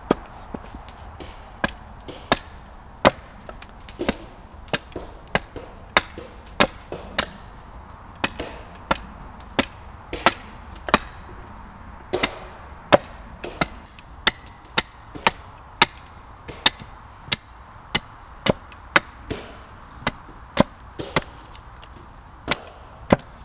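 Hand hatchet chopping into a green wooden pole resting on a tree-stump chopping block: a long run of sharp wooden chops, roughly one or two a second at uneven spacing.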